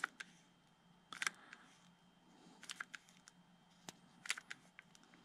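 Hot glue gun being squeezed to feed a bead of glue: a handful of faint, irregular clicks from the trigger feed and the tip against the foam part, over a faint low hum.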